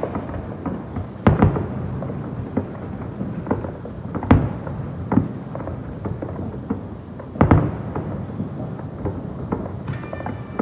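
Fireworks display: irregular booms and cracks over a steady low rumble, with the loudest bangs about a second in, around four seconds and just past seven seconds.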